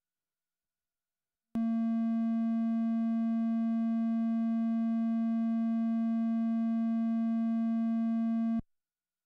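Triangle-wave output of a WMD/SSF Spectrum VCO, a Eurorack analog oscillator: one steady tone at a single unchanging pitch. It starts suddenly about a second and a half in and cuts off sharply about seven seconds later.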